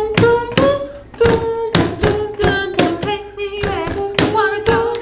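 A woman singing a tune with no clear words, held notes broken into short syllables, with a sharp tap at the start of each note, about two a second.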